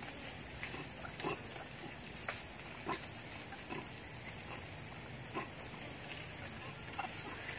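Macaques giving a string of short, low grunts, roughly one a second, over a steady high-pitched insect drone.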